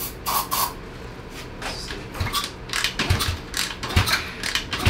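Two short hisses of an aerosol can spraying upper cylinder lubricant into the open intake of a 125cc Lifan clone engine. Then comes the kick-starter being kicked over several times, with low thumps about a second apart and clicking, and the engine not firing.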